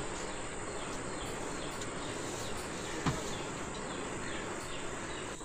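Steady chorus of insects, with one brief call falling sharply in pitch about three seconds in.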